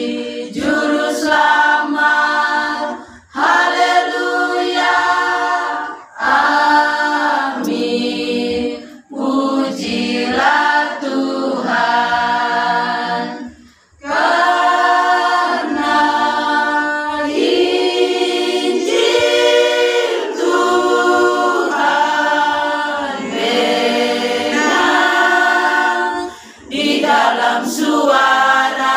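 Women's choir singing a hymn unaccompanied, in long held phrases broken by short pauses for breath.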